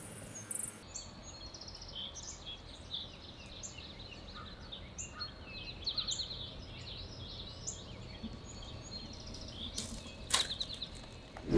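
Several songbirds chirping and singing over a low hiss of outdoor ambience, with a few quick trills among the short calls. A single sharp click about ten seconds in.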